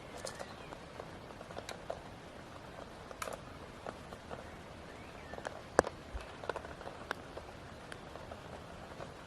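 Irregular light knocks, taps and rustles of someone handling tent gear and moving about on the ground, over a steady hiss, with one sharper knock about six seconds in.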